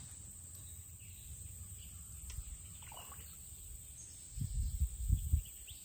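Quiet outdoor ambience: a steady low rumble with a few louder, short low thumps about four to five and a half seconds in.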